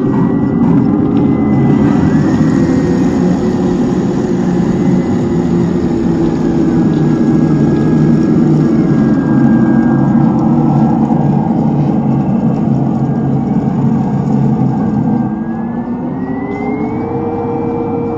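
1/10-scale RC tank running, a steady mechanical drone with a thin whine that slowly shifts in pitch. About fifteen seconds in the sound drops in level, and the whine then rises in pitch.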